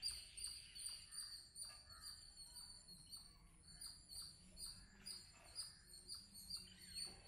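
Faint, high-pitched bird chirps repeating about twice a second in near silence.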